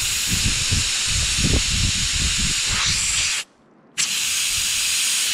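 Air hissing steadily out of a 37-inch off-road tire's valve stem with the valve core removed, as the tire is aired down from about 22 psi toward 16 psi for the trail. The hiss cuts out for about half a second a little past halfway, then resumes.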